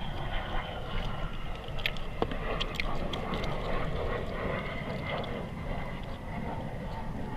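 Wind buffeting the microphone, with a few small wet clicks and squelches from hands pulling the guts out of a freshly opened blacktip shark, mostly around two to three seconds in.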